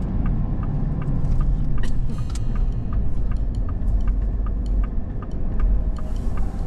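Car cabin road and engine noise while driving, with the turn signal clicking steadily about twice a second.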